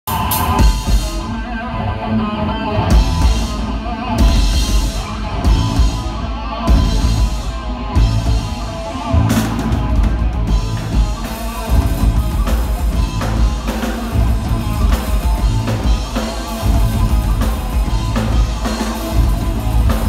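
A live heavy metal band playing instrumentally: electric guitars, bass guitar and drum kit, with regular cymbal crashes through the first half.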